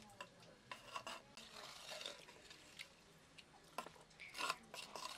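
Metal spoon stirring and scraping against the inside of a small clay pot as chicken is mixed with a wet spice marinade: irregular scrapes and light taps, the loudest about four and a half seconds in.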